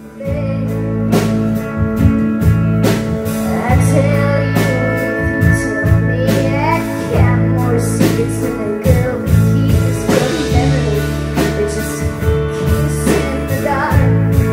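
Live rock band playing, with electric guitar over steady low notes and a drum kit keeping a regular beat, fading in at the very start.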